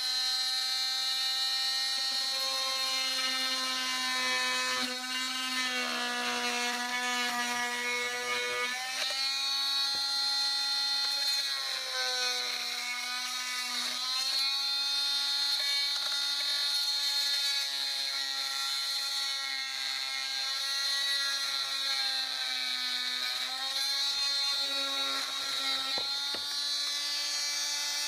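Oscillating multi-tool running steadily with a buzzing whine as its blade cuts through PVC central-vacuum pipe. Its pitch dips a few times as the blade bears into the plastic and loads the motor.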